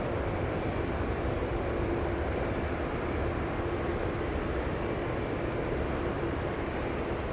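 Boeing 747 Dreamlifter (747-400 LCF) jet engines at takeoff thrust as the freighter lifts off and climbs: a steady, deep rumbling drone with a faint steady hum in it.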